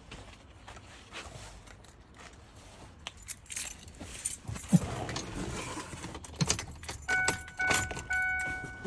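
A bunch of keys jangling and clicking as they are handled. From about seven seconds in, an electronic chime beeps steadily about once a second.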